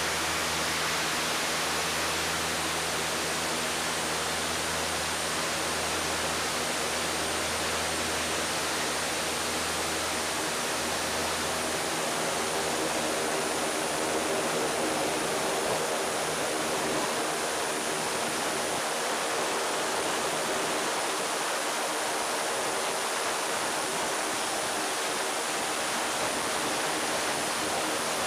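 Aircraft engines running on the ground: a steady rushing noise with a low hum and a faint high whine. The deepest part of the hum drops away about twelve seconds in.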